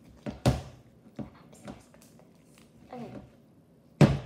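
A plastic slime tub being handled on a tabletop: a few short clicks and knocks, then a loud knock about four seconds in as the tub is moved across the table.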